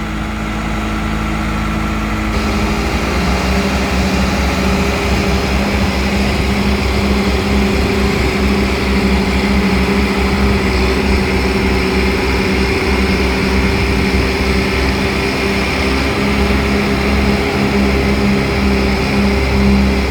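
John Deere 410D backhoe's diesel engine running steadily. About two to three seconds in, the engine speed steps up, then holds at the higher speed.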